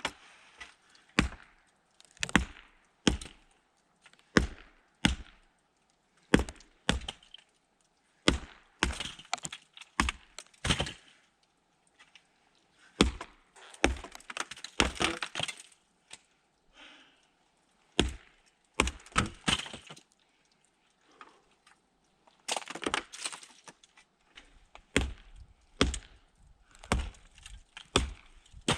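Thick roof ice being struck and broken, with repeated sharp cracking blows about one a second and brief pauses between runs of strikes.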